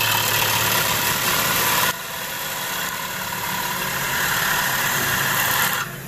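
Gouge cutting a spinning bowl of wet green silver maple on a wood lathe: a steady hiss of shavings coming off over the hum of the lathe motor. It is loudest for about the first two seconds, lighter after that, and stops sharply near the end as the tool leaves the wood.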